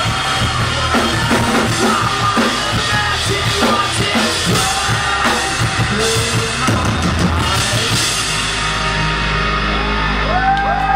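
Live rock band playing loud, with a pounding drum kit and shouted vocals; about eight seconds in the drums stop and a low held note rings on with sustained guitar tones as the song winds down.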